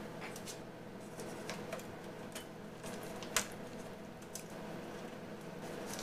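Light clicks and handling noises of the HP MediaSmart Server EX470's plastic front case and mesh plate being worked into place by hand, with one sharper click about three and a half seconds in, over a steady low hum.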